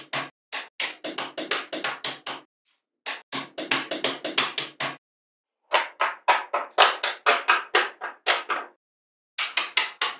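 Small metal magnetic balls clicking as they snap together while being pressed into place: quick runs of sharp clicks, about six a second, broken by short pauses.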